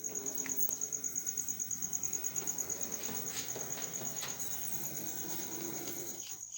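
Small DCC-controlled model locomotive running along the track: a low rumble that pulses about eight to nine times a second, under a steady high-pitched whine.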